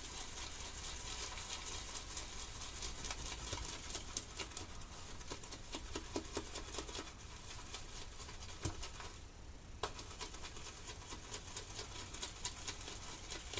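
Badger shaving brush being worked round a lathering bowl of shaving cream, making a steady wet crackle of fine clicks and squelches as a few freshly added drops of water are whipped into the lather. The crackle drops out briefly about nine seconds in, then resumes.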